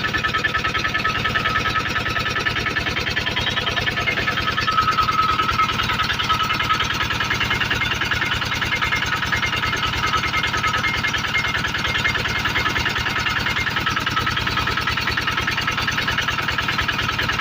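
Engine-driven generator running steadily at a constant speed, a fast, even chugging with a steady whine on top.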